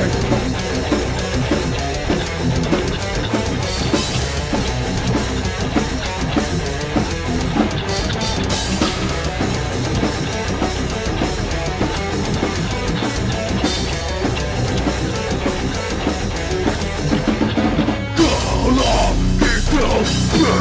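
A metalcore band playing an instrumental passage: distorted electric guitars, bass guitar and a drum kit hit fast and hard. Near the end a shouted vocal comes back in over the band.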